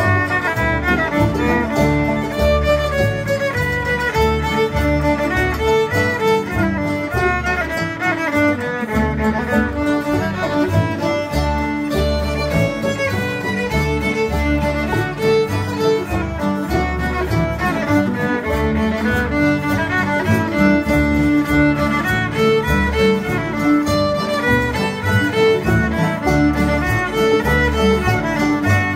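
Acoustic string band jam: several fiddles bowing a dance tune in unison, backed by banjo, guitars and upright bass keeping a steady beat.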